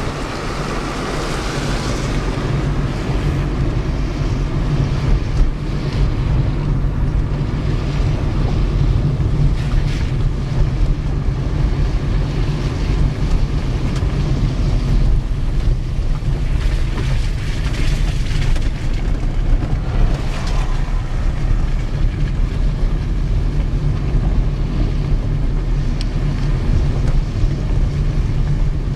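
Steady low rumble of a vehicle driving, heard from inside it, with wind noise on the microphone.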